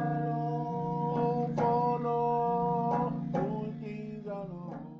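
Background music: guitar notes ringing over held chords, fading out toward the end.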